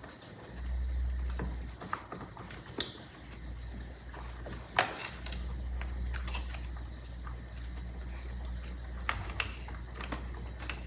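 Scattered plastic clicks and taps as a steering-wheel wiring harness connector and its red locking tab are worked by hand, the connector fitting tightly; the loudest click comes about five seconds in. A low steady hum runs underneath.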